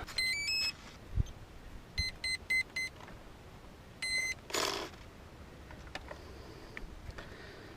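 Brushless-motor ESC powering up as a 4-cell LiPo is plugged in: a quick rising three-note startup tune, then four short beeps counting the four cells, then one longer beep as it arms. A light thump and a brief rustle of handling come between the beeps.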